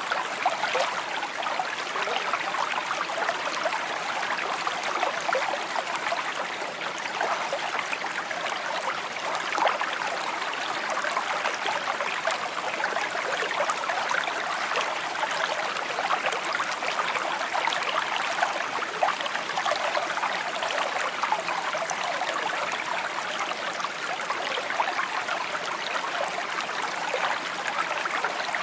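A shallow stream babbling and trickling over stones, a steady burble full of small splashes.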